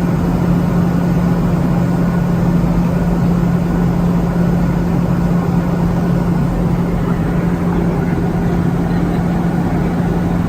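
Airliner cabin noise in flight: a steady drone of engines and rushing air with a constant low hum.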